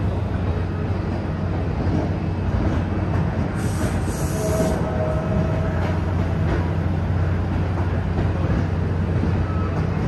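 NJ Transit passenger train cars rolling past close by as the train pulls out, a steady rumble of wheels on rails. A short high hiss comes about four seconds in.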